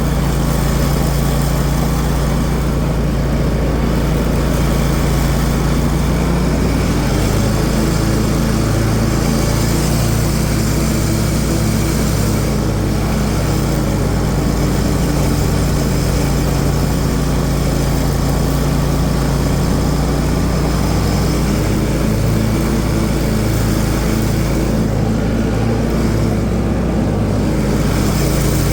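Craftsman ZTS 6000 zero-turn mower's 26-horsepower Briggs & Stratton engine running steadily with the 52-inch deck's blades engaged while cutting grass. The engine note shifts slightly about seven seconds in.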